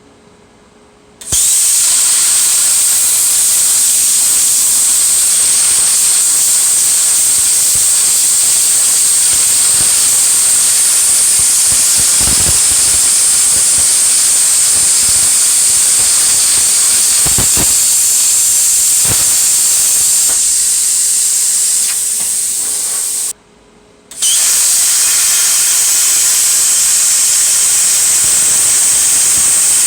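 PrimeWeld Cut 60 plasma cutter running with a loud, steady hiss that starts about a second in. Near the end it drops a little, stops for under a second and starts again.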